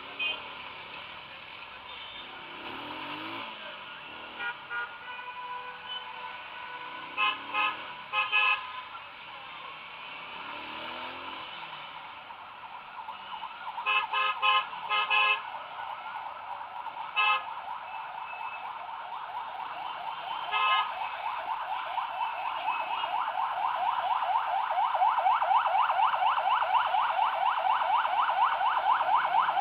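City traffic heard from a moving motorcycle, with short vehicle-horn toots coming in quick clusters several times. In the last third a fast pulsing buzz swells and grows into the loudest sound.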